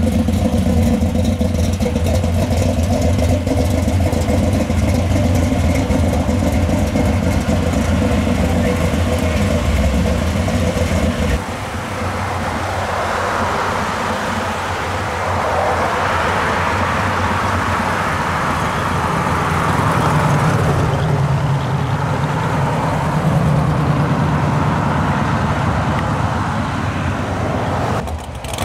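A modified Chevrolet Vega wagon's engine running at low speed with a deep, steady, low-pitched note as the car rolls slowly past. About eleven seconds in the sound changes abruptly to classic muscle cars, a Dodge Challenger and a Camaro, driving by on a road, with engine and road noise that swells and fades.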